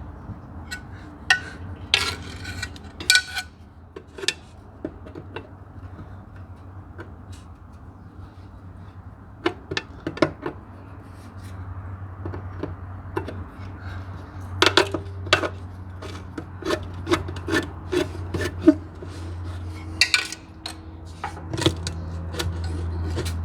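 Hand tools working on engine parts: irregular sharp clinks, knocks and scrapes of metal on metal, in clusters with pauses between, over a steady low hum.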